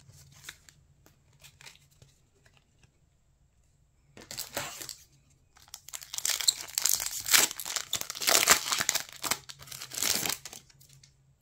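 Foil Pokémon booster pack wrapper crinkling and tearing as it is torn open by hand. There is a short crinkle about four seconds in, then a longer stretch of crinkling and tearing from about six to ten seconds.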